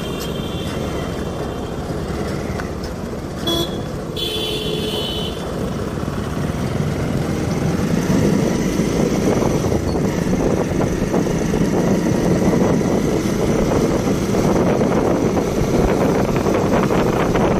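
Motorcycle riding along a road, its engine running with road and wind noise on the microphone, getting louder as the bike speeds up from about eight seconds in. A brief high horn toot sounds about four seconds in.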